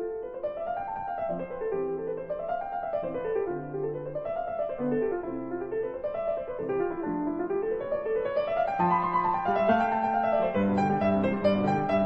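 Background piano music: quick runs of notes rising and falling in repeated waves over held low notes, growing louder and fuller in the last few seconds.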